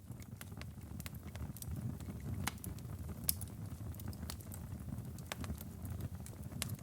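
Campfire burning: irregular sharp crackles and pops of burning wood over a low, steady rumble of the flames.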